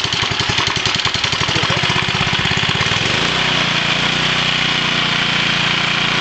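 Small gasoline engine of a home-built generator, belted to an alternator, running just after being pull-started. It beats with an even pulsing for about the first three seconds, then settles into a steady hum.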